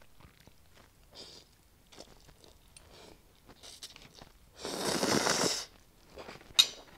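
A person eating instant tom yum noodles: faint chewing and small mouth clicks, then one loud slurp of about a second drawing the noodles in, nearly five seconds in, and a short sharp click near the end.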